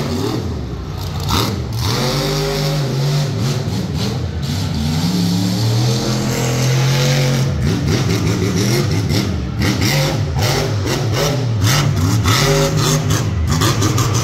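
Monster truck engine revving hard, its pitch climbing and falling: a long held high-rev stretch in the middle, then a string of quick rev blips. A couple of sharp knocks in the first two seconds as the truck lands from a jump.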